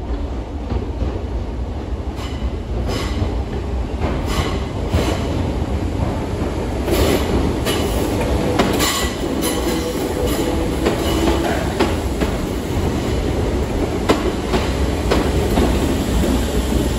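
Merseyrail electric multiple unit running into an underground station platform: a steady low rumble, with the wheels clicking over rail joints as the front draws in and a brief wheel squeal about halfway through.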